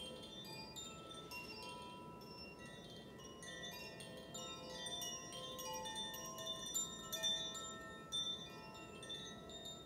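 Wind chimes ringing: many clear metallic notes at different pitches struck at irregular moments and left to ring into one another, over a low steady background noise.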